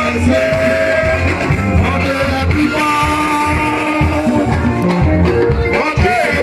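Music with singing and a steady beat: a sung melody of long held notes over a repeating bass pulse.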